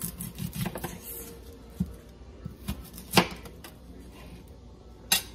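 Kitchen knife slicing through an onion and knocking on a plastic cutting board: a few irregular knocks and taps, the loudest about three seconds in and another near the end.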